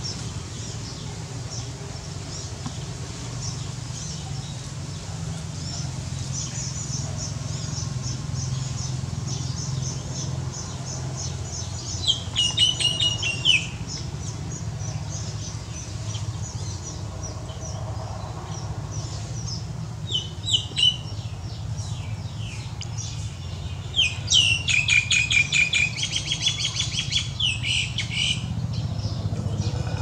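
Baya weaver singing its chattering song: faint high chips at first, then rapid chittering bursts, one of about a second and a half near the middle, a short one later, and a longer run of several seconds near the end. A steady low hum runs underneath.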